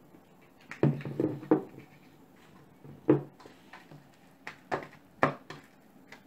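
Short knocks and clinks of a glass olive-oil bottle and its cap being handled and set down, and of a stainless steel dish as raw venison fillets are moved around in it: a cluster about a second in, then single knocks around three and five seconds.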